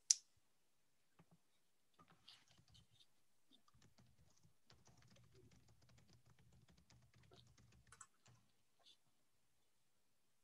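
Faint computer keyboard typing: a scatter of light key clicks for several seconds, in near silence.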